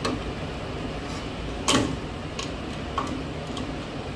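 Tongue-and-groove pliers clicking against the fan blade's hub nut as the nut is worked loose, with a few sharp metallic clicks, the loudest near the middle, over a steady low hum.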